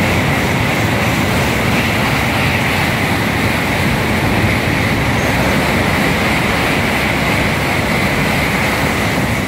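N700-series Shinkansen bullet train running past the platform at close range: a steady, loud rush of wheels on rail and air, with a constant hiss on top, that cuts off abruptly at the very end.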